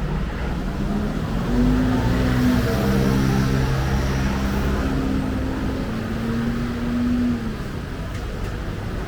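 Motor vehicle engine running close by on a city street, louder for several seconds in the middle and then fading back into the traffic noise.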